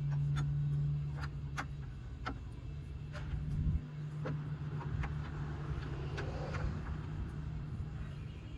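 Hand tools and suspension parts clinking and knocking, in about a dozen irregular metallic strokes, as the front suspension is worked on, over a steady low hum.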